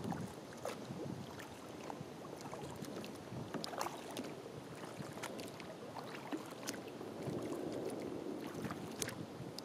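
Water lapping and dripping at the bow of a kayak as it is paddled along: many small irregular splashes and drips over a soft steady rush of water.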